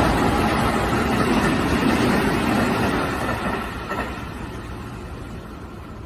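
Sanyo Electric Railway 5000 series electric train passing at speed, its wheels rumbling along the rails. The noise fades after about three and a half seconds as the train moves away.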